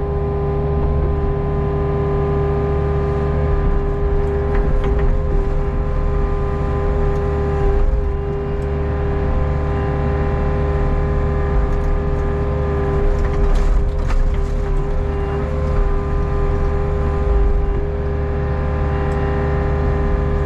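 Hitachi ZX48U mini excavator running steadily while the boom and bucket dig at the bank: a constant diesel engine drone with steady whining tones over it.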